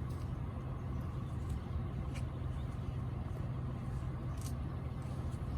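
A steady low rumble with rushing noise, the sound of riding a fatbike: wind on the microphone and fat tyres rolling.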